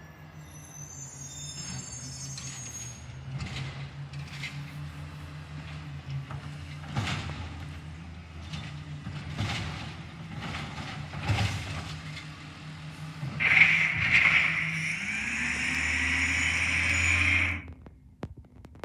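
Garbage truck's diesel engine running at a low idle, with short sharp hisses every second or two. Near the end a loud high hiss comes in for about four seconds while the engine speeds up, then stops suddenly.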